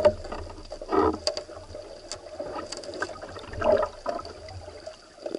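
Underwater water noise picked up through a diver's camera housing, with louder bursts of bubbling and sloshing about a second in and again near four seconds. A faint steady high whine sits under it.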